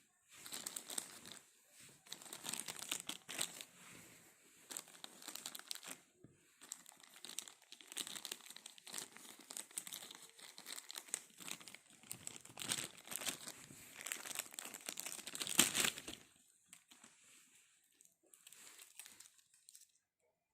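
Packaging being crinkled and crumpled as it is handled, in a dense run of crackly rustling for most of the stretch, then a few softer rustles near the end.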